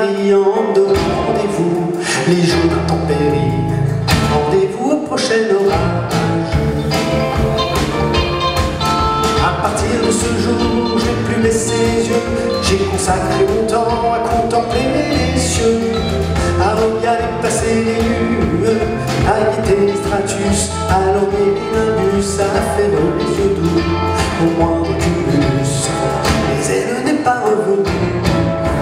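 Live band music: electric guitars and a drum kit playing at a steady beat.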